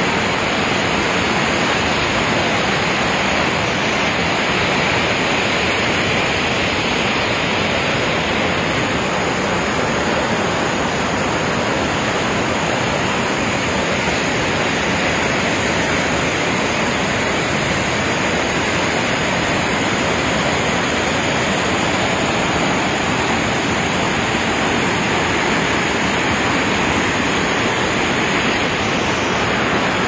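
Dudhsagar Falls, a large waterfall, giving a loud, steady rush of falling water with no let-up.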